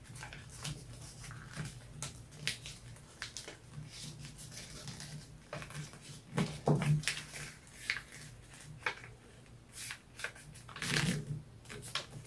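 Paper rustling and crinkling as a sheet is folded and creased by hand, in short scattered crackles, with a few louder ones about midway and near the end.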